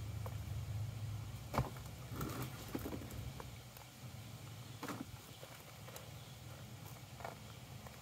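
Gloved hand digging and scraping through loose potting soil in a plastic tub, with a few sharp knocks, the loudest about one and a half seconds in. A low steady hum lies underneath, fading about halfway through.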